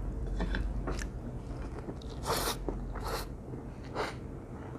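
Close-miked eating of stir-fried instant noodles: steady chewing, with three short slurps of noodles about halfway through and near the end.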